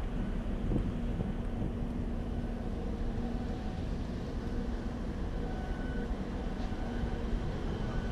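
Wind on the microphone over a low, even hum of a large ship's machinery, with a faint steady tone in it.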